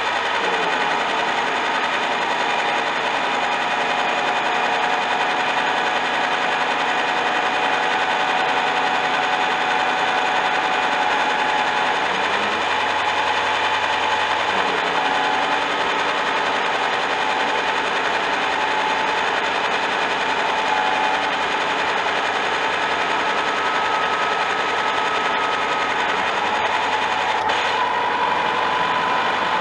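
Old milling machine running under cut: a flat end mill grinding a curve into a metal barrel clamp, giving a steady gear whine over a fast chattering rattle. The whine's pitch bends briefly a few times.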